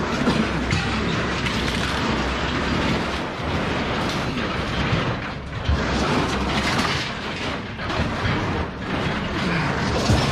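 Metal rattling and clanking as small children's bicycles are pulled out of a wire-mesh steel cage, frames and wheels knocking against the mesh and each other.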